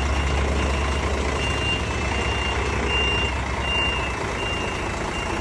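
Reversing alarm on a road-train tipper truck beeping steadily, one high tone a little over once a second, over the low steady running of the truck's diesel engine as it backs up.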